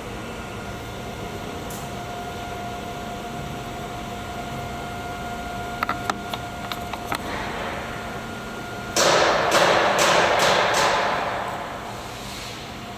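CNC router cutting rubber, its spindle running with a steady whine. A few sharp clicks come about six seconds in. About nine seconds in, a sudden loud rush of noise starts, lasts about two and a half seconds and fades away.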